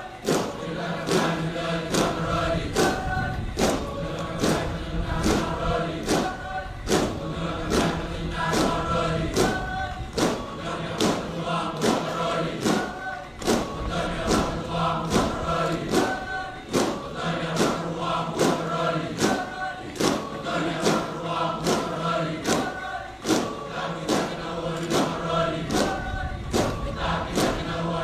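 A group of boys chanting a traditional Fijian meke (a kava-ceremony chant) in several-part harmony, with a low held note under it, over sharp percussive beats about twice a second.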